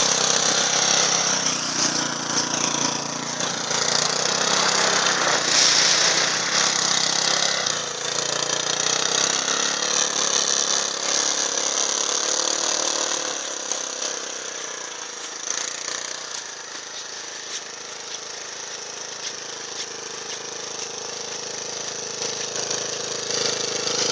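Small engine of a Leshy 2x2 fat-tyred all-wheel-drive mini motorcycle running and revving as it rides through snow, its pitch rising and falling with the throttle. It fades in the second half as the bike moves off and grows louder again near the end.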